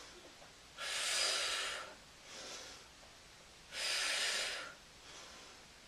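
A woman breathing deeply and slowly: two long, louder breaths about three seconds apart, each lasting about a second, with fainter breaths between them.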